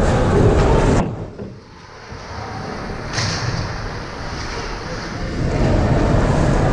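Ice hockey rink ambience: a loud muffled rumble that cuts off suddenly about a second in, leaving quieter rink sound with a single sharp crack a little after three seconds in, before the rumble builds back up near the end.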